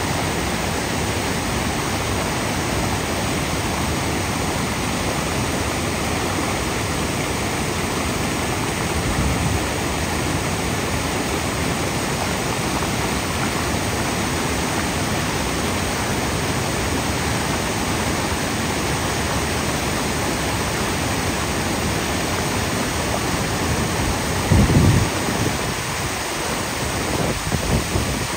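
Eagle Falls cascading over granite boulders: a steady rush of white water. Near the end come a few brief low bumps.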